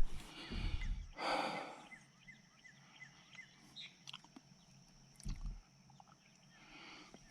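Scattered knocks, a brief rustle and a low thump from handling while working on a tractor, with faint small chirps repeating in the background.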